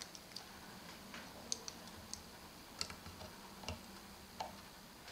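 Faint, irregular clicks and taps of hard plastic LEGO Technic figure parts being handled by fingers, about ten in all.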